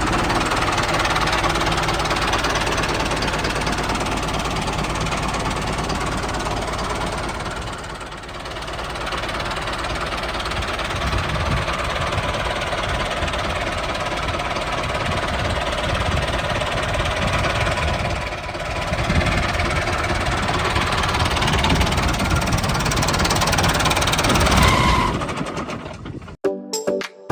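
Tractor engine running steadily with a knocking chug, easing off briefly twice and cutting out near the end.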